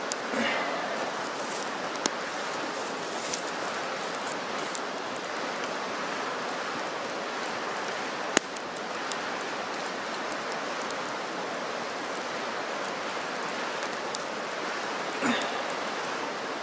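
Small wood campfire burning with occasional sharp crackles and pops over a steady, even hiss.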